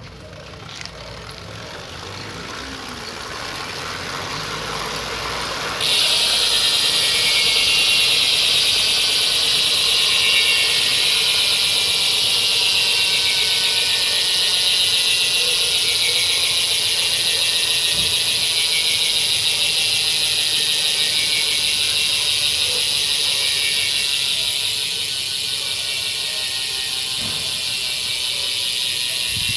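Ursus three-pawl bicycle hub freewheeling: the pawls click over the ratchet so fast that they make a loud, steady high-pitched buzz. The buzz starts suddenly about six seconds in, after a softer build-up, and slowly drops in pitch as the wheel slows.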